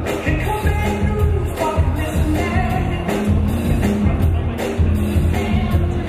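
A song plays: music with a sung vocal over a strong, steady beat and heavy bass.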